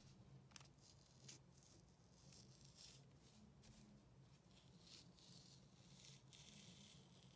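Near silence after the music has faded out, with a faint low hum and a few faint ticks.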